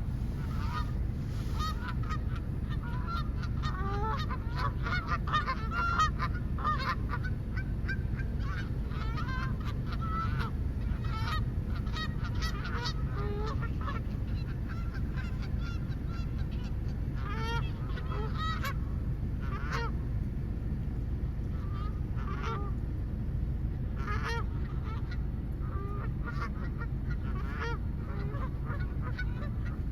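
A flock of geese honking, with many short calls overlapping. The calls come thick and fast through roughly the first half, then in sparser groups, over a steady low rumble.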